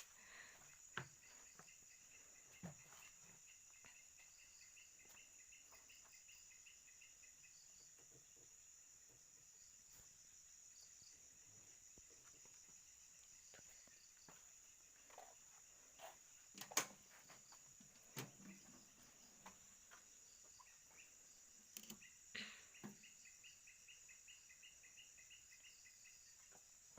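Near silence filled by steady high-pitched cricket chirring, with a second, pulsing insect trill coming in for a few seconds near the start and again near the end. A few faint knocks fall in between, the loudest about halfway through.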